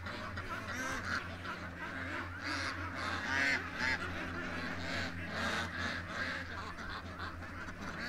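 A flock of domestic ducks and geese calling over and over, in many short overlapping calls, with a steady low hum underneath.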